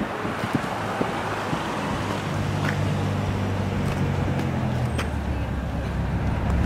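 City road traffic, with a motor vehicle's engine humming low and growing louder from about two seconds in.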